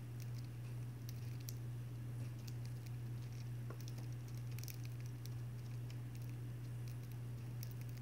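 Small pet parrots pecking and husking seed in a plastic feed cup: a scatter of small, crisp clicks and taps, over a steady low hum.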